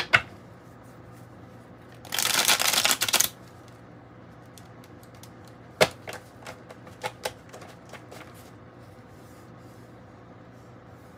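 A deck of tarot cards being shuffled by hand: a sharp tap, then a rapid rattling riffle of about a second, followed by a few separate light taps as the cards are squared and laid down on a wooden table.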